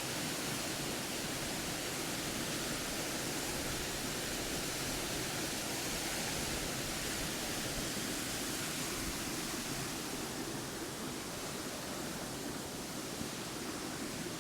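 Waterfall rushing steadily, an even noise of falling water that eases slightly in the last few seconds.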